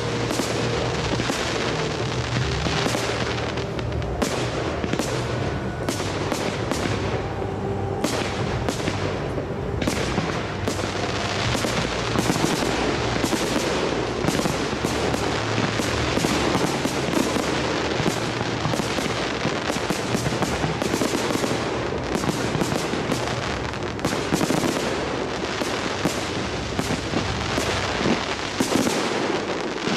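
Large fireworks display: many aerial shells bursting in rapid, irregular succession, with crackling reports, over music playing underneath.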